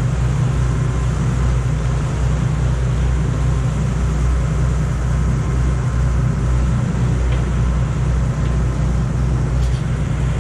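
Sport-fishing boat's engine running steadily at trolling speed, a continuous low drone.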